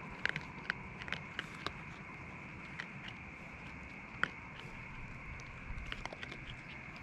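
Raccoons foraging on dry leaves and pine straw: irregular light crackles and sharp clicks, the loudest about four seconds in, over a steady hiss.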